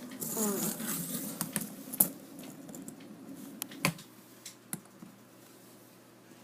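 Fidget spinners being handled and set spinning: a few scattered light clicks and taps, with a brief bit of a child's voice near the start.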